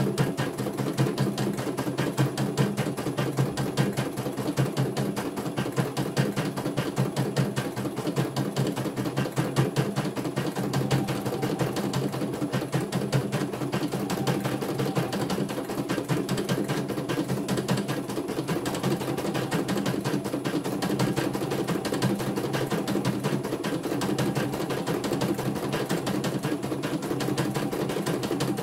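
CNY E900 computerized embroidery machine stitching a design: rapid, steady needle strokes as the hoop steps along under the needle, over a steady hum.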